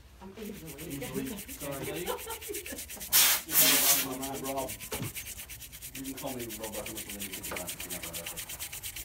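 A toothbrush scrubbing the solder side of a PS4 power-supply circuit board in quick, even back-and-forth strokes. About three seconds in there is one louder, harsher rush lasting under a second.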